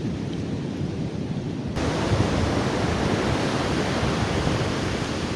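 Strong wind buffeting the microphone over surf on a beach: a steady, loud rushing noise that about two seconds in turns abruptly louder and hissier.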